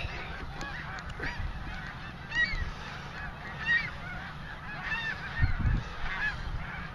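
A large flock of snow geese calling, with many high honks overlapping without a break.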